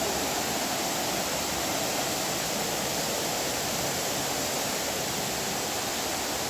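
Waterfall rushing steadily: a constant dense roar of falling water.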